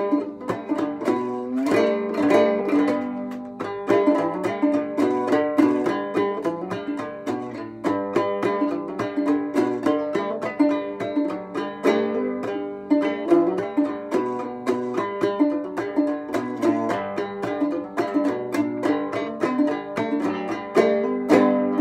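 Gourd banjo with a tacked-on skin head being played in a low open-C tuning: a tune of quickly plucked notes in a steady run.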